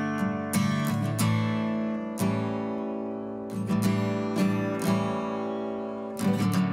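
Background music: acoustic guitar strumming chords, with strokes roughly every half second.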